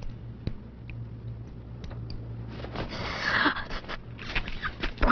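Quiet film soundtrack: a low steady hum with scattered faint clicks, and a brief breathy hiss about three seconds in.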